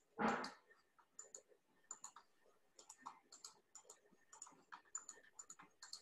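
Faint, irregular clicking of a computer mouse and keyboard, a few clicks each second.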